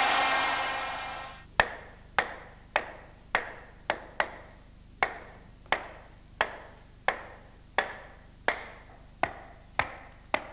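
Steelworks machinery noise fades out over the first second and a half. Then come hammer blows at a steady pace, about three every two seconds, each a sharp knock with a short ring.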